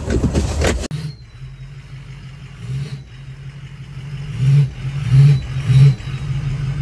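Pickup truck engine heard from inside the cab, running low and steady, then revved in three quick throttle blips over about a second and a half near the end.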